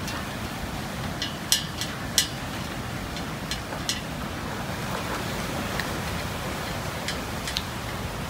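Cats eating raw chicken from steel plates: a scattering of sharp clicks and ticks as they chew and pick at the plates, the loudest about one and a half and two seconds in, over a steady rushing background noise.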